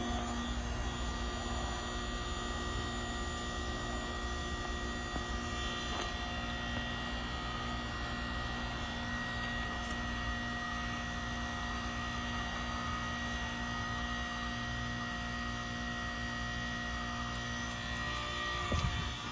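York Stellar heat pump running with a steady hum and several held tones from its motors. Near the end one short thud breaks in and the steady sound shifts.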